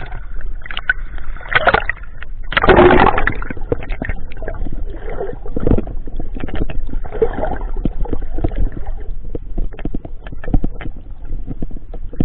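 Water sloshing and gurgling close to the microphone, with frequent irregular knocks and a louder rush of splashing about two and a half seconds in.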